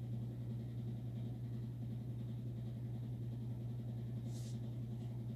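Steady low hum with faint background hiss, and a brief soft hiss about four seconds in.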